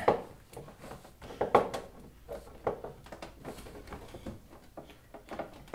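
Hands pressing and rubbing an adhesive-backed LED light strip onto a motorcycle's glossy plastic rear body panel, firmly to seat it. A few scattered light taps and clicks from the plastic, over a faint low hum.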